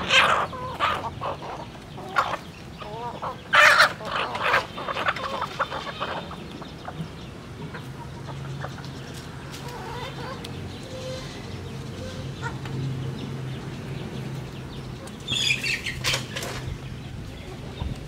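A flock of chickens clucking as they peck at feed on the ground, in irregular bursts: a cluster of loud clucks about four seconds in and another short run near the end, with a faint low steady hum in the background between them.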